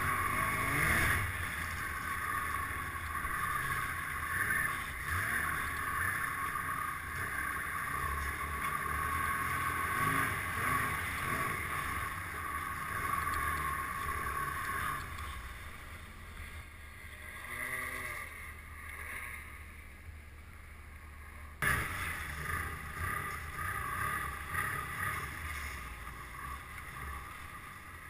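Snowmobile engine running while riding over snow, with wind on the microphone; it drops quieter a little past halfway, then comes back up suddenly about three-quarters of the way through.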